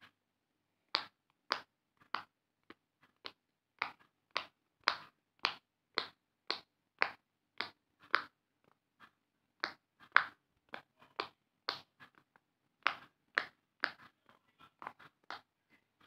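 Silicone pop it fidget toy, its bubbles pushed through one after another with a thin stick: a run of sharp pops about two a second, with a short pause about halfway.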